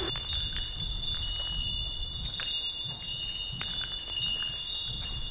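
Many small Japanese wind bells (fūrin) ringing together in the wind: several high, steady, overlapping tones over a low background rumble.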